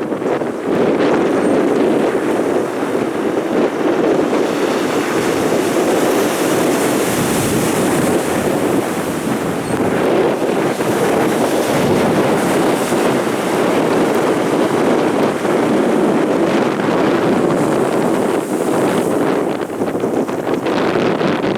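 Loud, steady roar of storm surf on the sea, mixed with strong wind buffeting the microphone.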